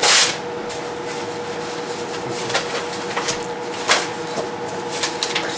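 Papers and other items being handled and pulled out of a backpack: a short rustle at the very start, then scattered light clicks and rustles over a steady hum.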